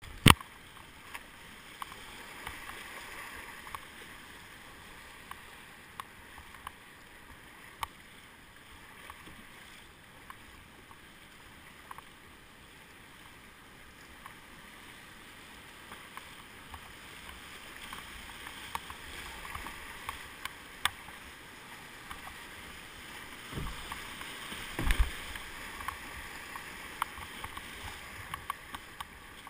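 Rushing river water of a shallow rapid around a kayak, with paddle strokes and splashes against the hull making scattered small ticks and splashes. A sharp knock right at the start, and a few louder low thumps a little over three-quarters of the way through.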